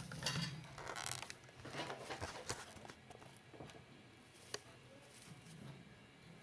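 Faint scratchy rustling with small clicks around a gerbil cage, busiest in the first three seconds, then quieter with a single sharp click about four and a half seconds in.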